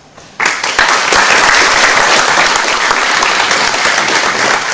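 A roomful of people applauding, the clapping breaking out about half a second in and holding steady.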